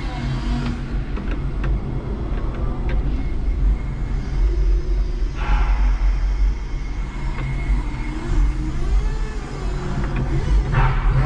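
Cab of a 5-ton electric forklift on the move: a steady low rumble and hum from its motors, with a few light rattles, two short hissing bursts, and a tone that rises and falls near the end.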